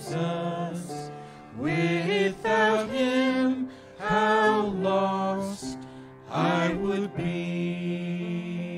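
Singers performing a slow gospel song with instrumental accompaniment. The lines come in short phrases with long held notes, and the accompaniment carries on between them.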